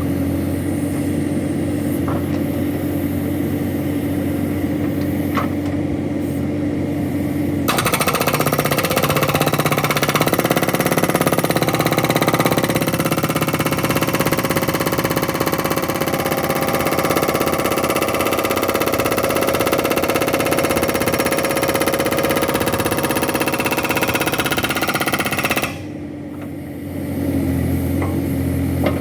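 A backhoe engine runs steadily. About eight seconds in, a hydraulic rock breaker on the backhoe starts hammering in a rapid, continuous run of blows that lasts about eighteen seconds. It stops near the end, and the engine drops briefly before picking up again.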